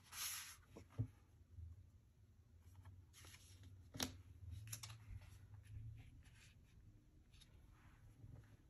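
Faint rustling and light taps of paper and cardstock being handled, as photos and a pink cardstock mat are moved about on a scrapbook page. There is one sharper tap about four seconds in.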